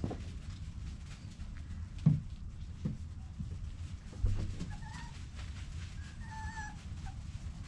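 Alaskan Klee Kai puppies at play: a few dull thumps in the first half, then a puppy whining in short high calls twice in the second half.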